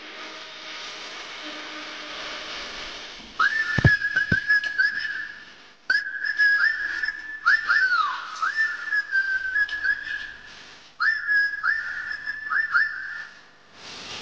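High whistling that mostly holds one pitch, broken by quick dips and swoops, in three phrases beginning about three seconds in. Before it there is a steady low hum with a hiss.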